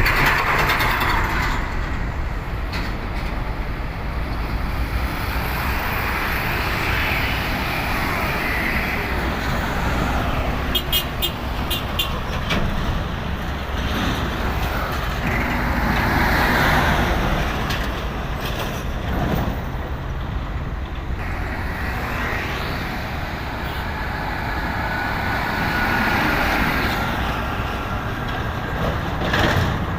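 Road traffic on an uphill ramp: trucks and other vehicles pass one after another, the engine and tyre noise swelling and fading about four times. A brief run of clicks sounds near the middle.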